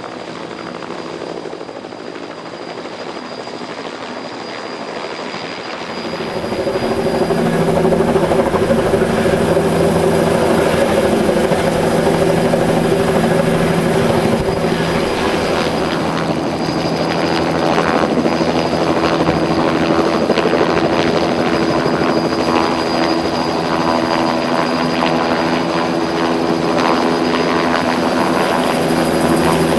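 Helicopter in flight, a steady rotor and engine drone that grows clearly louder about six seconds in and then holds steady.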